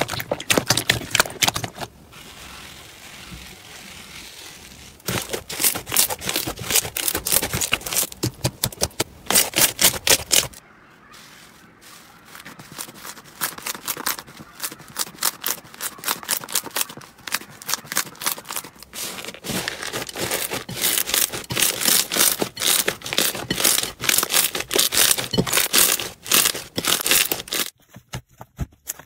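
Slime being squeezed, poked and stretched by hand, giving dense runs of sharp crackling and popping clicks. The texture changes several times, with softer, quieter handling around two and eleven seconds in, and it drops away near the end.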